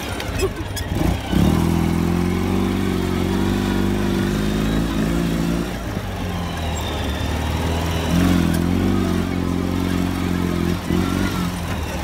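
2007 Ural Patrol sidecar motorcycle's 750 cc boxer-twin engine running under way, held at steady throttle for about four seconds, eased off briefly, then held steady again for about three seconds.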